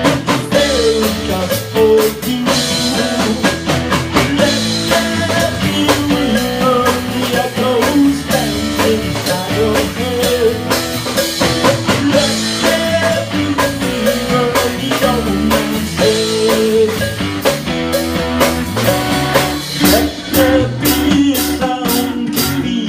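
Rock band playing an instrumental passage with no vocals: guitar over a drum kit beat. Near the end the drum strokes come sharper and closer together.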